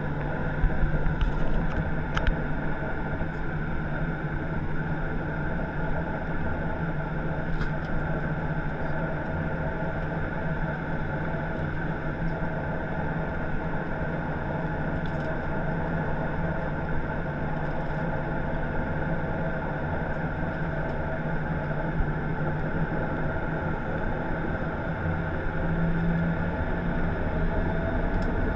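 Boeing 737-800 cabin noise while taxiing: its CFM56-7B engines run at low taxi power as a steady low hum and drone, heard from inside the cabin, with a few faint clicks.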